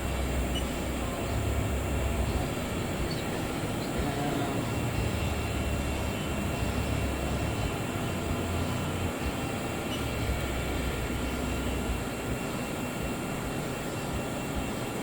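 Steady machine hum and hiss with faint steady tones, and a low rumble that comes and goes every few seconds.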